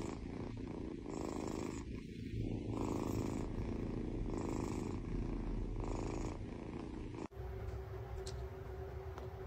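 Domestic cat purring steadily, the purr swelling and easing with each breath about every second and a half. It cuts off abruptly about seven seconds in, leaving a quiet room with a low steady hum and a faint click.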